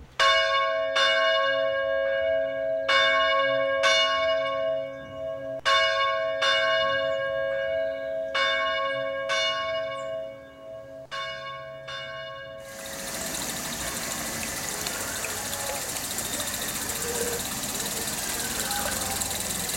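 A church bell strikes about a dozen slow, unevenly spaced strokes, each left to ring on, stopping about 13 seconds in. After that, a steady hiss of background noise.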